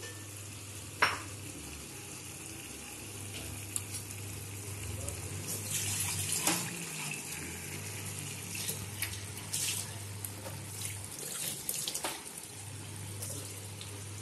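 Thick paneer curry simmering in a frying pan over a gas burner: a soft bubbling hiss with scattered pops and clicks. A low hum cuts in and out every few seconds behind it.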